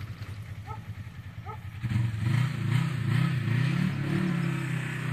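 Polaris RZR 1000 side-by-side's parallel-twin engine revving as it drives through a muddy ditch. It comes in loudly about two seconds in, its pitch swinging up and down with the throttle, then settles at a steady higher pitch.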